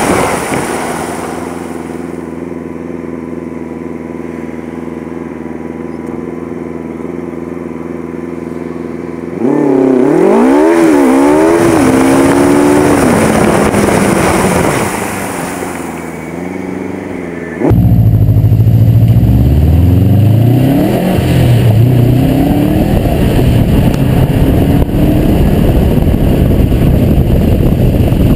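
2004 Subaru Impreza WRX STI's turbocharged 2.5-litre flat-four engine, heard from outside at the front wheel. It runs steadily at low revs, then about nine seconds in the revs climb and fall through gear changes. About eighteen seconds in it jumps louder into a hard pull, with the pitch rising, then settles into loud steady running with tyre and road noise on the wet surface.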